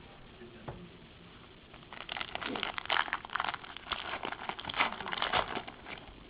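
Crinkling of a trading-card pack wrapper being handled, a dense crackle that starts about two seconds in and dies away near the end.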